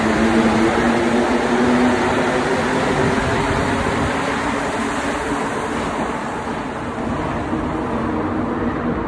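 Rubber-tyred Montréal Metro Azur (MPM-10) train pulling out of the station along the platform: a steady rumble of tyres and running gear with a low motor hum, easing slightly as the last cars clear the platform near the end.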